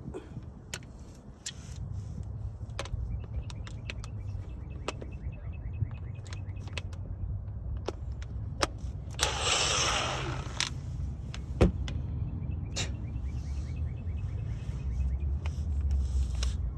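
A battery-powered impact wrench on the 14 mm brake caliper bolts: one harsh burst of about a second near the middle, among rapid fine ticking, clicks and knocks of tools on the caliper. The bolts do not break loose, so a hand ratchet is needed.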